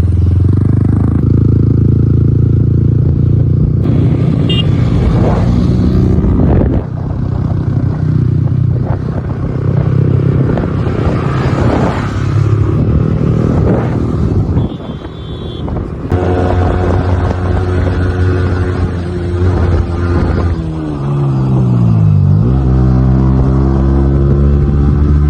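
Motorcycle engine running while riding, with rough road and wind noise. About 20 s in the engine note drops sharply and then climbs again as the bike slows and picks up speed.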